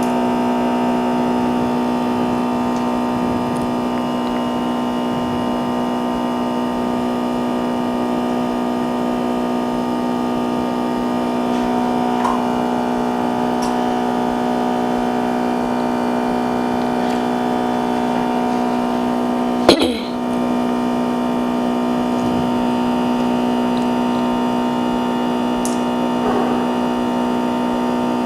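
Steady electrical hum with a stack of even tones, with a few faint small ticks and one sharp click about twenty seconds in.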